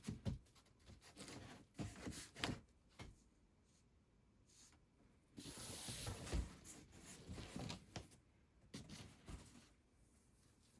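Irregular rubbing and rustling handling noises with several sharp knocks, the longest rustle about halfway through.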